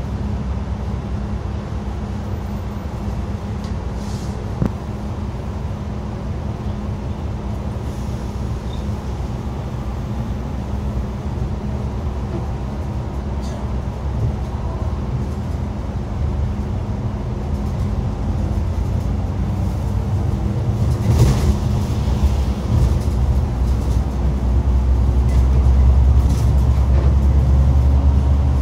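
Xiamen King Long XML6125 hybrid city bus under way: a steady low rumble of drivetrain and road noise that grows louder over the last third. A brief hiss comes about two-thirds of the way through.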